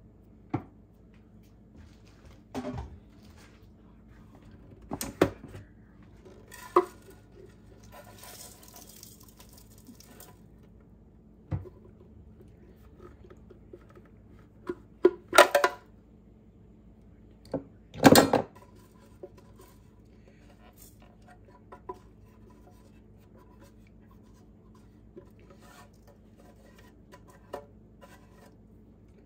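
Kitchen clatter of utensils and dishes knocking against a cooking pot as dried chilies and other ingredients go in, with a short rustle a few seconds in. The loudest knocks come in a cluster just past the middle.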